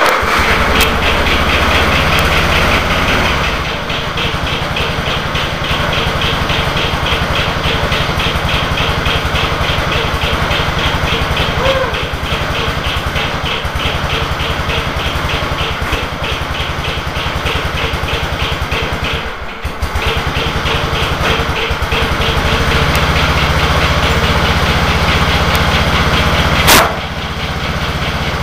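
Small engine of an old Murray riding mower running, just after it has been started. It drops in level a few seconds in, dips briefly once about two-thirds of the way through, then picks up again; a single sharp crack sounds near the end.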